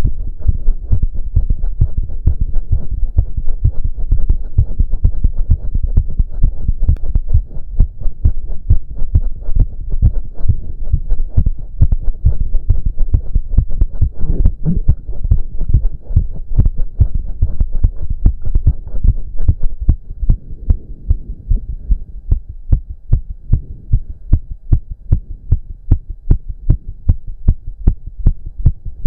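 A man's heart beating very fast and hard from an intense cardio workout: rapid, regular thumps about three a second. Heavy breathing noise runs behind it and thins out about two-thirds of the way through.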